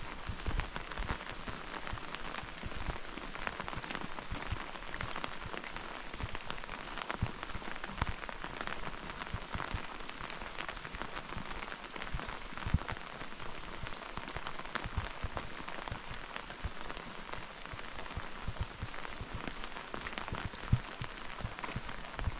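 Steady rain falling on a wet concrete road, a constant patter of many small drops.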